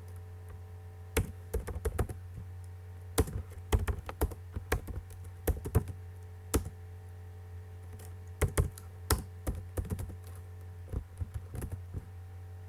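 Computer keyboard typing in irregular runs of key clicks, with pauses between, over a steady low hum.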